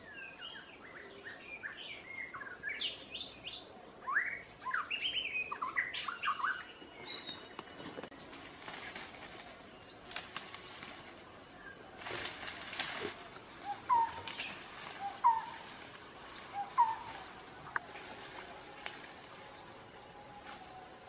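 Forest birds chirping in a quick run of short up-and-down calls, followed by dry leaves and twigs rustling and crackling underfoot. Three short rising calls stand out a little past the middle.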